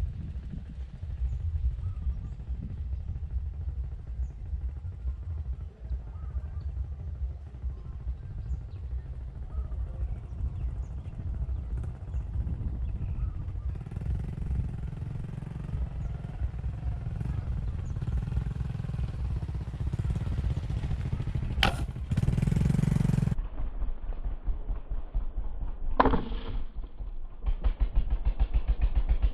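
A small engine running with a fast, low beat. Near the end it grows louder and more even. Two sharp cracks break in, the first followed by about a second of hiss.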